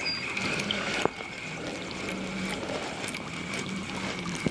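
Quiet handling and hull sounds of a fishing kayak on the water: a faint low hum comes and goes in the second half, with a light knock about a second in and another near the end.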